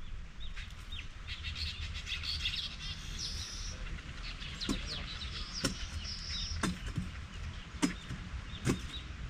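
Small birds chirping and twittering, with sharp knocks about once a second from about halfway through.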